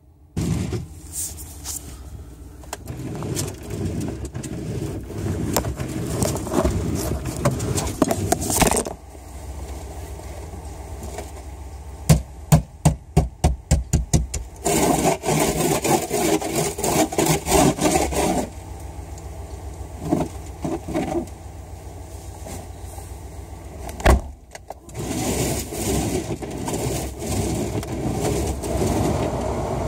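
Adhesive plastic protective film being peeled off car floor carpet: crackling, tearing and rustling in uneven stretches, with a quick run of sharp snaps about twelve seconds in and a single thump near the end. A low steady hum runs underneath.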